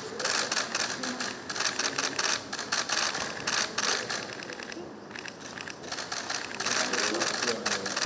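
Many press camera shutters clicking rapidly and overlapping in a dense clatter, thinning out briefly about halfway through.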